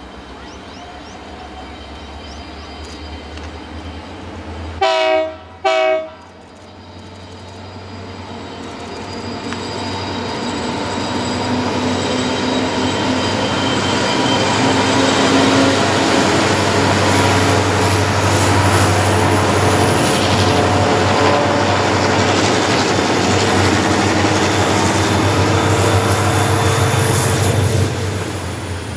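A diesel locomotive's horn sounds two short blasts about five seconds in. Then a lashup of five diesel locomotives hauling a loaded grain train passes, its engine noise building and holding loud, and it eases near the end as the grain wagons roll by.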